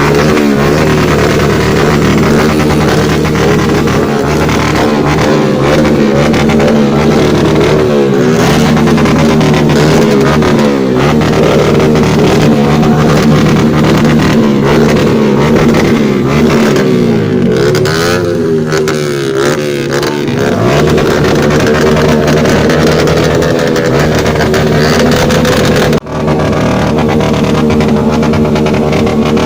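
Motorcycle engines revving up and down, several at once, loud and continuous, with a sudden short break about 26 seconds in.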